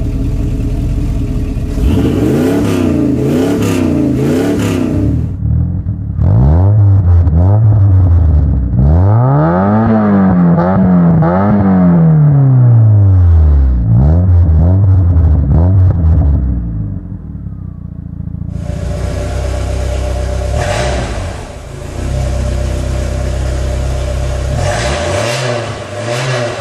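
Three car engines being revved in turn. First a 1984 Chevrolet Camaro revs a few times. From about six seconds a 1991 Mazda MX-5's 1.6-litre four-cylinder, fitted with a Porsche Cayenne cat-back exhaust, revs again and again, its pitch rising and falling. For the last eight seconds a 1994 Audi Coupe 2.0's exhaust revs twice.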